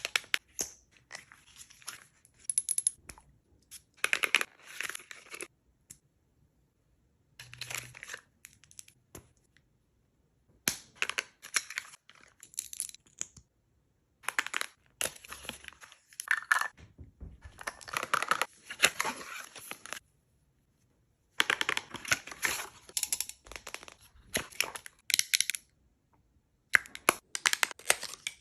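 Packaging being opened and handled during a makeup unboxing: crinkling, rustling and tearing in irregular bursts of a second or two with short pauses between.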